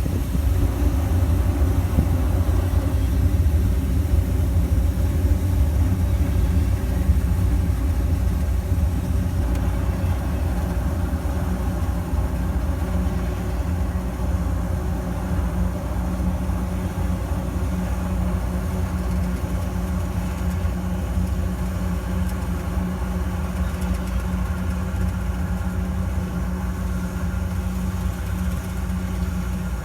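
Engine of farm machinery running steadily, a deep continuous hum with no pauses or changes in speed.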